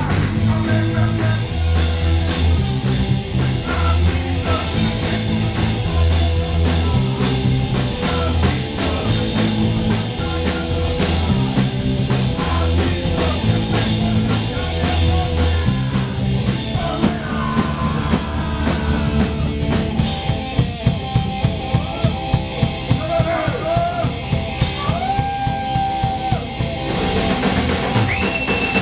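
Live punk rock band playing: distorted electric guitars, electric bass and a drum kit, with a singer on a microphone. About twenty seconds in, the drums hit hard, evenly spaced beats under bending guitar notes.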